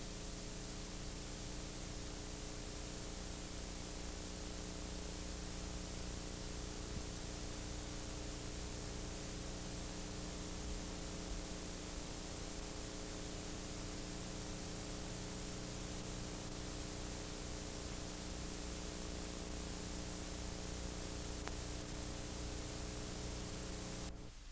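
Steady hiss with a low electrical hum underneath, the background noise of an old videotape recording, with no other sound; it drops away suddenly near the end.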